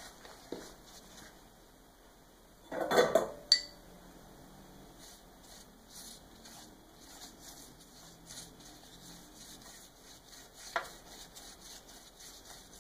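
Kitchen clatter of a metal baking tray and utensils, loudest in a short burst of knocks about three seconds in, then faint light taps and rustles as a pastry brush is worked over a rolled strudel of thin pastry.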